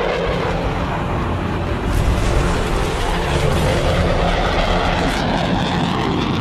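Fighter jet flying past, a steady loud rush of jet engine noise with the afterburner lit.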